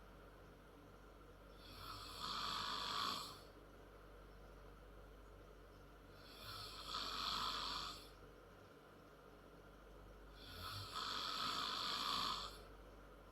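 A 10-year-old girl snoring loud and hard in her sleep: three rasping snores about four seconds apart, each swelling up over a second or so, with quiet breathing between them.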